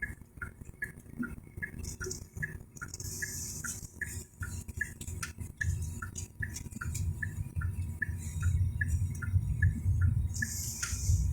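Steady, even ticking at about three ticks a second over a low rumble, with two brief hissing sweeps about three seconds in and near the end.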